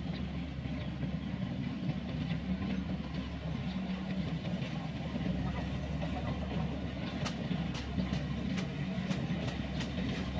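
Kubota combine harvester's engine running steadily: an even low drone with a humming tone, and a few faint clicks.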